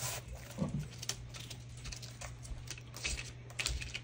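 Paper and a flexible plastic stencil rustling and rubbing under hands pressing them flat, with a few soft taps near the end, over a steady low electrical hum.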